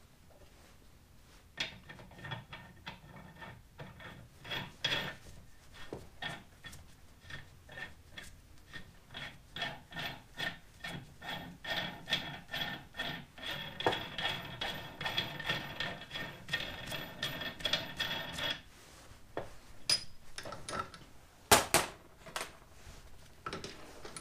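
A large steel hex nut spun by hand along the freshly wire-brushed threads of a grade 8 bolt clamped in a vise. It makes a long run of quick metallic clicks and scraping with a faint ringing, which stops about three-quarters of the way through. A single sharp metal clank follows near the end.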